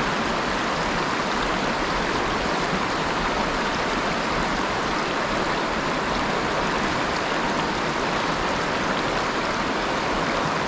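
River water flowing steadily, a constant even rush of the current.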